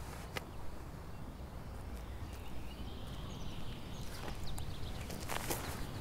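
Outdoor ambience: a low wind rumble with faint bird calls and a few small clicks, then a short crunch of feet on gravel about five seconds in as a stone is thrown.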